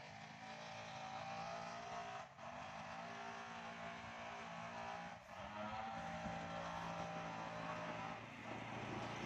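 A small motor scooter's engine running faintly as the scooter rides up the lane toward the listener, a low steady hum whose pitch shifts slightly.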